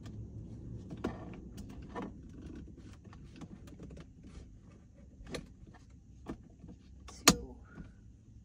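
Scattered plastic clicks and taps from a clamp-on phone holder being fitted and adjusted on a car's rear-view mirror, with one sharp loud click about seven seconds in, over a low steady hum.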